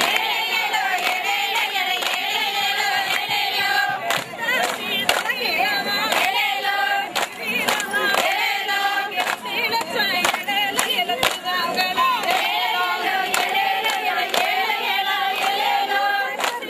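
A group of women singing a folk song together in chorus, with regular hand claps keeping the beat.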